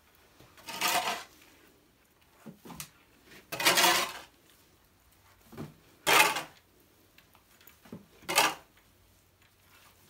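Four short, loud scraping or clattering noises, about two and a half seconds apart, with a few faint knocks between them.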